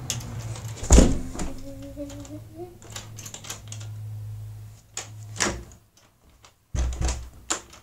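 A heavy thump about a second in, then scattered clicks and knocks, with a low hum that drops out after about five seconds and another thump followed by a few clicks near the end.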